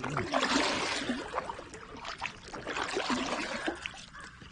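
Kayak paddle dipping and pulling through the water, with splashing, gurgling and dripping in two spells, a stroke on each side.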